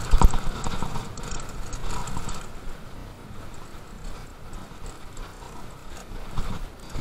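Mountain bike clattering down a rough dirt trail: knocks and rattles from the bike as it runs over bumps, with a hard knock just after the start.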